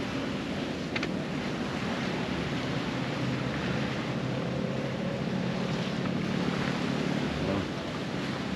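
Wind buffeting the microphone in a steady, rumbling rush, with one light click about a second in.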